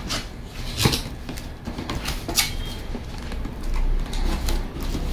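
Unpacking handling noises: a series of sharp knocks and clicks with rustling as the blower's cardboard box is opened and its parts taken out.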